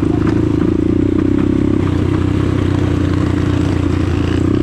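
Shineray 250cc STXE engine running steadily, its note easing a little about two seconds in and picking up again near the end.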